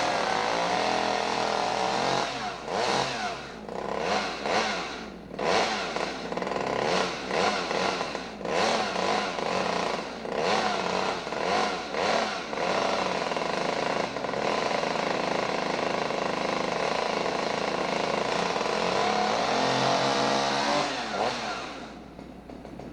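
Chainsaw engine running and being revved repeatedly in sharp surges, then held at a steadier pitch before dying away near the end.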